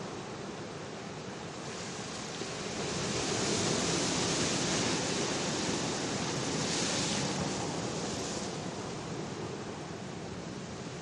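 Ocean waves breaking on the shore: a steady rush of surf that swells louder twice, about four seconds in and again around seven seconds.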